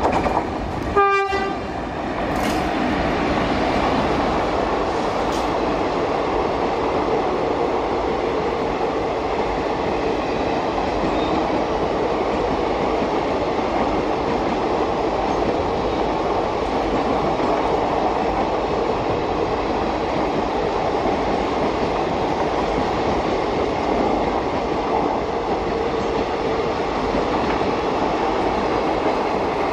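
Electric-hauled express train: a short horn toot about a second in, then the coaches run past at speed with a steady noise of wheels on the rails.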